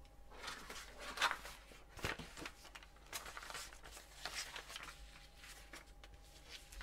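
Paper rustling and light handling knocks as a printed instruction booklet is picked up and opened, in short scattered bursts.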